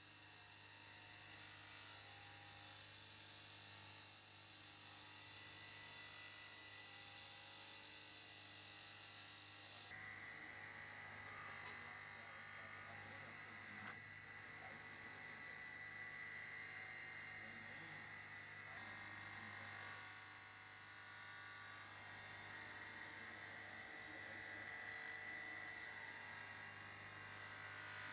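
Bench grinder running with a steady motor hum while rusty steel pliers are pressed against its spinning wheel to grind and polish off the rust. A steady high tone comes in about a third of the way through, and there is a single sharp click near the middle.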